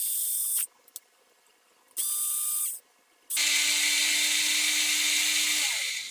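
Small handheld power tool run in three bursts, short, short, then a longer run of nearly three seconds whose motor pitch falls as it spins down, used on the over-long wheel screws of an RC car.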